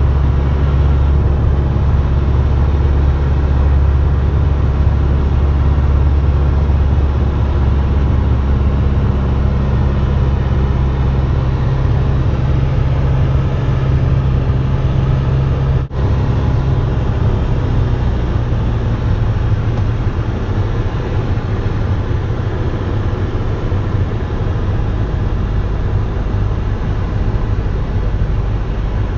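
Light aircraft's piston engine droning steadily, heard inside the cockpit with cabin and airflow noise. About halfway through there is a brief break, after which the drone goes on slightly lower in pitch.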